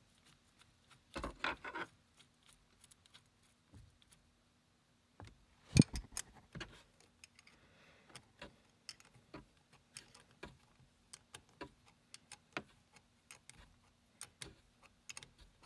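Hand tools clicking and clinking on metal as the bolts of a short-throw shifter's holder are tightened down: a short clatter about a second in, one loud clank near 6 s, then a run of light clicks about one or two a second.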